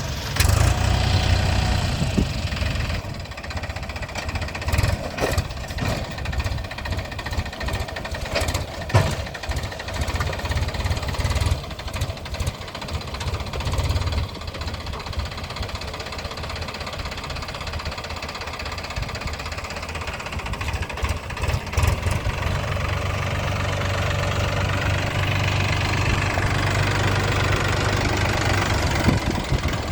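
Heavy diesel engine running with a knocking clatter, with several sharp knocks in the first half and a steadier run in the second half.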